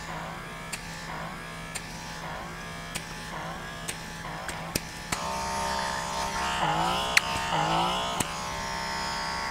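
Lumina DermaPeel handheld suction skin device running, its small motor humming with a pitch that swoops up and down in repeated sweeps about once a second as the tip is worked over the skin, with faint ticks. It grows louder about halfway through.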